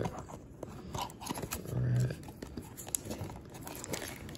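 Cardboard trading-card hanger box handled and turned in the hands: scattered taps, rubs and light crinkles, with a short voiced hum about two seconds in.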